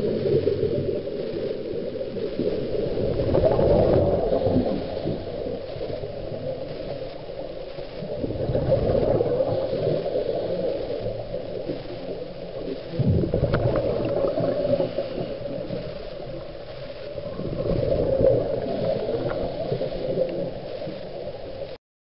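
Scuba regulator exhaust bubbles heard underwater: a bubbling, gurgling rumble that swells with each exhalation, about every four to five seconds. It cuts off suddenly near the end.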